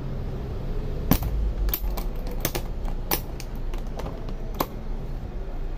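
Sharp metallic clicks and clacks, about seven spread irregularly, as a hand works the clamp latch on a bus's metal engine cover.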